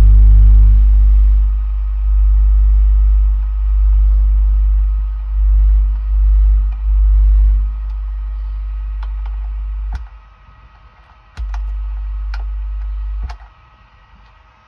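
Subwoofer driven by a car amplifier playing deep bass that swells and dips as the amplifier's controls are turned with a screwdriver. About ten seconds in, the bass cuts out, comes back for a couple of seconds, then stops, with a few light clicks.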